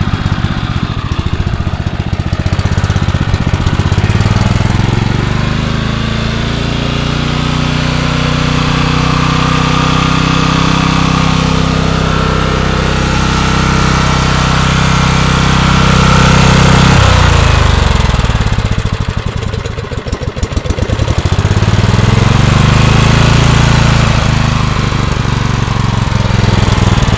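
Generac 4000-watt portable generator's small gasoline engine running continuously, a loud steady drone whose tone changes abruptly about two-thirds of the way through.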